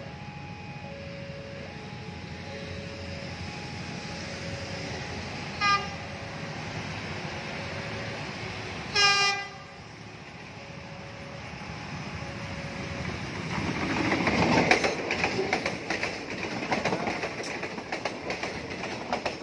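Level-crossing warning bell sounding two alternating tones, with an approaching commuter train blowing its horn twice: a short toot, then a longer blast. The train then passes close by, its wheels clattering over the rail joints, loudest about two-thirds of the way in.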